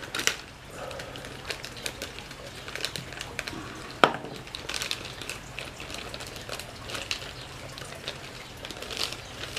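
Clear plastic bag crinkling and rustling as it is handled and opened, with scattered small clicks and one sharp click about four seconds in.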